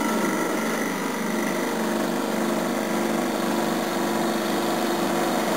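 Heat pump running steadily just after start-up: an even whirring with a hum of several steady tones. It sounds alright, a sign the unit still works.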